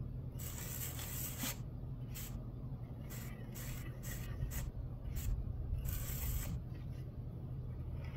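A plastic float rubbed over acrylic stucco finish in short hissing strokes, about a dozen in an irregular rhythm, over a steady low hum.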